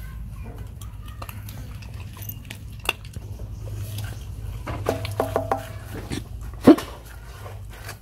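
Dog eating rice from a metal bowl: small clicks of teeth and tongue against the bowl as it chews and licks. There is one sharp knock on the bowl late on.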